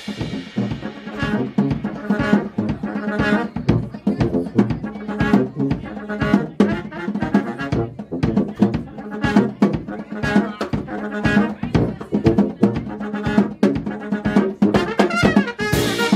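Live jazz played by a brass-and-drums quartet: trumpet leading over tuba and baritone saxophone, with a drum kit keeping time, and a cymbal crash near the end.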